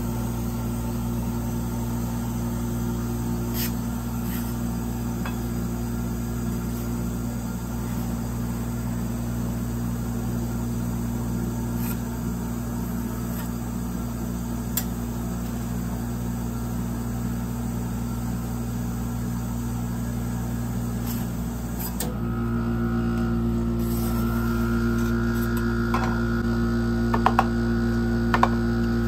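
Steady electric hum of a rolled-ice-cream cold-plate machine, with a few faint ticks of the metal spatula on the frozen plate. About two-thirds of the way through the hum grows louder and a higher steady tone joins it, and near the end come a few sharp taps.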